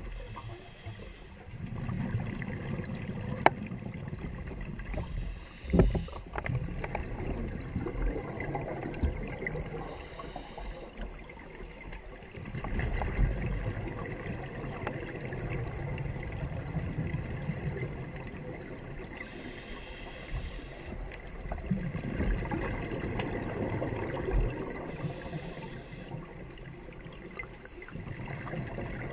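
Scuba diver breathing through a regulator underwater: a hiss on each inhale every several seconds, and rumbling bubbles on each exhale, with a couple of sharp clicks.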